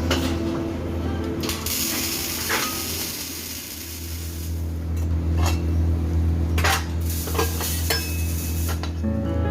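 MIG welding arc crackling and sizzling for a few seconds, followed by several sharp metallic clinks.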